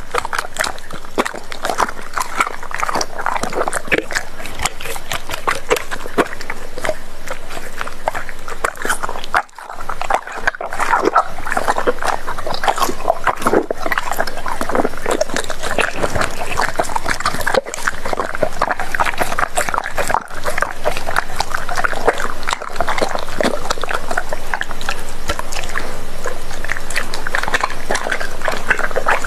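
Doberman pinscher eating raw meat: continuous wet chewing, biting and smacking, with dense clicks of teeth on the meat and a short pause about a third of the way in.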